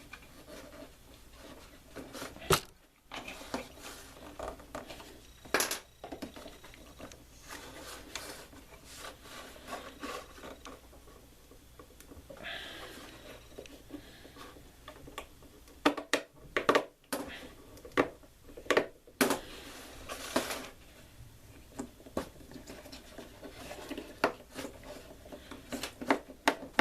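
Scattered clicks, knocks and scrapes from hand-fitting small parts: retaining rings being worked onto panel-mount USB/12V sockets set in a metal ammo can. The clicks come in tighter clusters in the second half.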